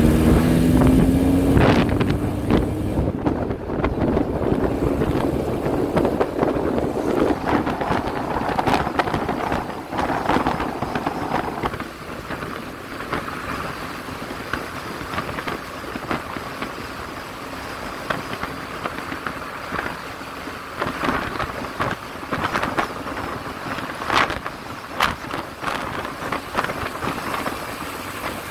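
Wind rushing over a microphone mounted on the outside of a moving car, mixed with road and engine noise and scattered small knocks. It gets quieter about twelve seconds in.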